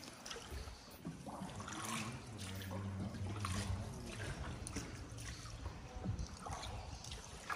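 Water splashing and trickling around a paddled tour boat in a limestone cave's underground river, with scattered short splashes or drips. A faint low drone sounds for a few seconds in the middle.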